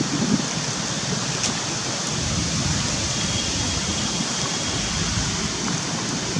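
Steady rushing noise with irregular low rumbles, and a faint high thin tone held for a couple of seconds around the middle.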